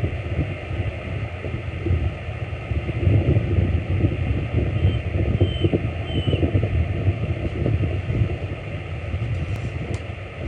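Low, uneven rumble of wind buffeting the microphone, swelling and easing in gusts. About halfway through, three faint, short, high chirps from a bald eagle calling.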